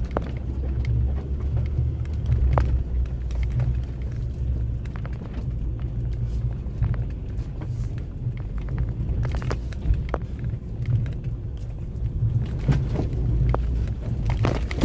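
A vehicle's engine rumbling steadily while driving, with scattered knocks and rattles.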